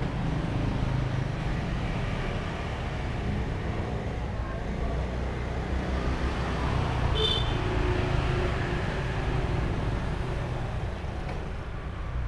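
Street traffic: motorbikes and cars passing on the road, a steady engine rumble, with one brief high-pitched chirp about seven seconds in.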